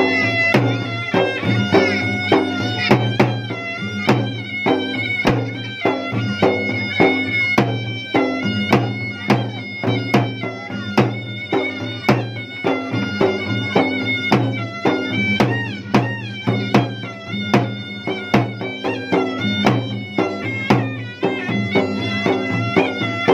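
Traditional Makassar gendang drumming, with rapid, sharp drum strokes under a sustained wind-instrument melody that plays over a steady drone.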